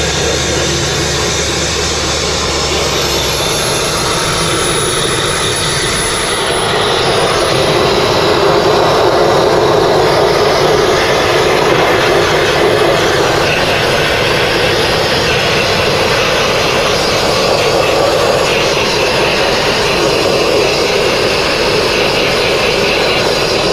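Handheld sandblasting nozzle blasting abrasive onto stone with compressed air to strip paint: a steady loud rushing hiss that gets a little louder about seven seconds in.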